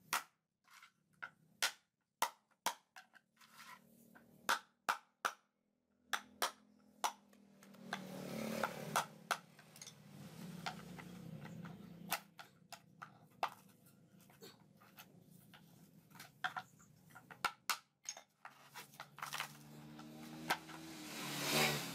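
Sharp, irregular knocks and scrapes of a metal tool working inside a cut-open coconut, gouging out the thick coir husk. A louder low rumbling noise swells in the background about a third of the way in, and again toward the end.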